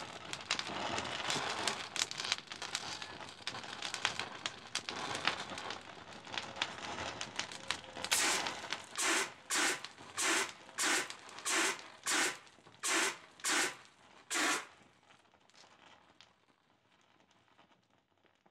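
Thousands of burning matches crackling and popping densely. About eight seconds in, a fire extinguisher sprays them in about ten short hissing bursts, roughly one and a half a second, putting the fire out. Only a faint crackle is left near the end.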